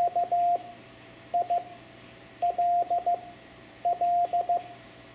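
Morse code (CW) tone sending the word KILL: dah-dit-dah, dit-dit, then dit-dah-dit-dit twice, as four groups of long and short beeps with pauses between the letters.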